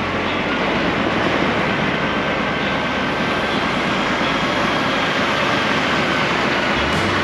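DAF XF articulated truck pulling slowly out of a yard and turning, its diesel engine and cab noise making a steady, even drone.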